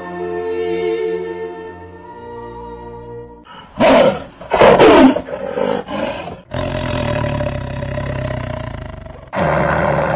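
Choral singing with held notes, then a tiger roaring: two loud roars falling in pitch about four and five seconds in, a shorter one, a long rumbling growl, and another roar near the end.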